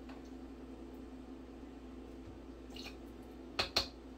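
Steady low hum in a quiet kitchen, with a few faint clicks and then two sharp clicks about three and a half seconds in, from handling a measuring spoon and vinegar bottle over a blender cup.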